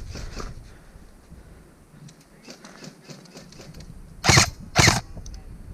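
Two single shots from an airsoft electric rifle (Elite Force MK18) about four seconds in, half a second apart. Each is a short, sharp crack with a brief whirr from the gearbox.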